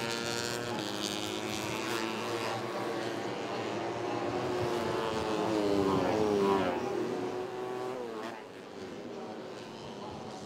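Racing 150cc four-stroke underbone motorcycles, several engines revving at differing pitches. About six seconds in, bikes go by close and the engine pitch falls as they pass, then the sound gets fainter.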